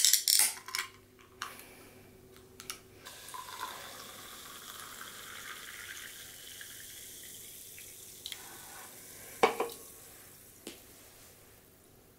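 A can of carbonated lemon sour is cracked open with a sharp click and hiss. The fizzy drink then pours into a glass for several seconds, foaming. About nine and a half seconds in, the aluminium can knocks down onto the wooden table.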